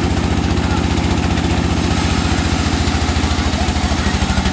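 Engine driving a wood saw, running steadily with a fast, even low beat.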